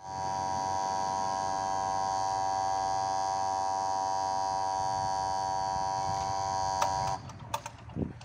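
Level-crossing warning buzzer sounding a steady, harsh buzzing tone while the barrier arm lowers, warning of an approaching train. It cuts off suddenly about seven seconds in as the barrier comes down, followed by a few sharp clicks and a low thud.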